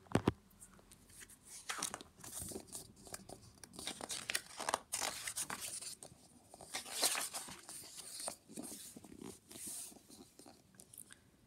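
Pages of a hardback picture book being opened and turned by hand: paper rustling and crinkling in a series of short swishes as the hand slides over the pages, with a short knock at the start.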